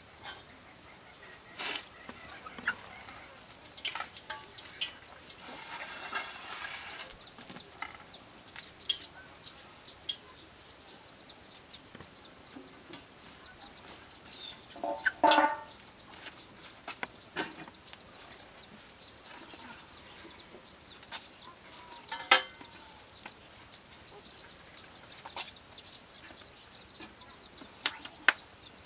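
Chickens clucking, with one louder call about fifteen seconds in, over a run of thin high chirps and a few sharp clicks.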